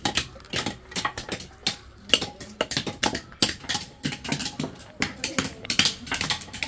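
Raw cashew nuts being cracked open by hand with a small hammer on a stone block: rapid, irregular sharp taps, several a second.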